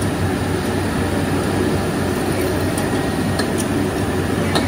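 Workshop machinery running steadily, a low hum under an even noise, with a few light clicks about three to four and a half seconds in.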